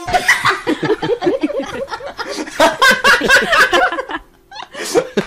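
People laughing and chuckling, with a few spoken words mixed in.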